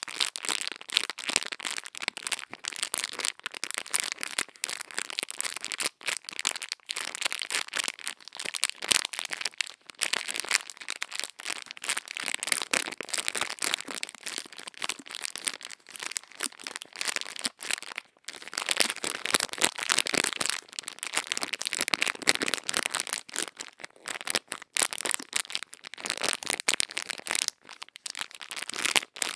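Close-miked ear-cleaning ASMR sounds: dense, crisp crackling and scratching that goes on without a break, rising and falling in loudness.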